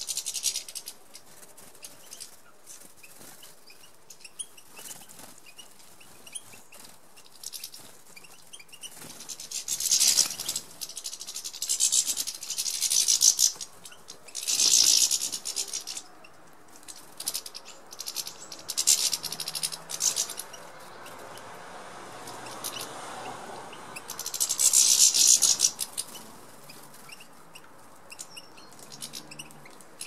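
A flock of European goldfinches at a seed feeder: several separate bursts of high twittering and wing fluttering, with quieter stretches between them.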